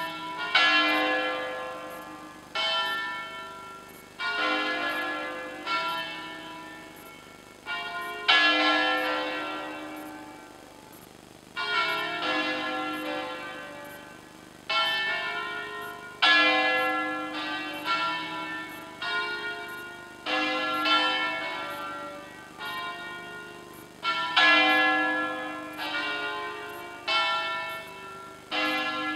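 Several church tower bells played as a bell concert: strokes on bells of different pitch come in quick clusters every second or two, each cluster ringing out and fading before the next.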